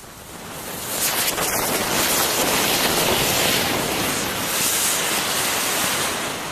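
Several anar cone fountain fireworks burning together, a loud steady hiss of spraying sparks. It swells about a second in and dies down near the end.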